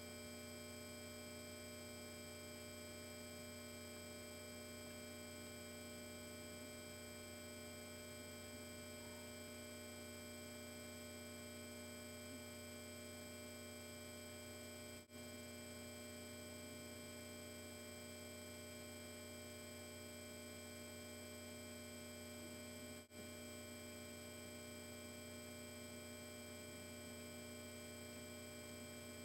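Faint, steady electrical hum and buzz made of several constant tones. The sound drops out very briefly twice, about halfway and about three-quarters through.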